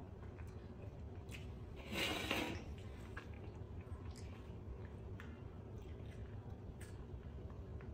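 Faint clicks and smacks of a baby macaque picking at and chewing pomegranate seeds, over a low, steady background hum. A brief, louder noise comes about two seconds in.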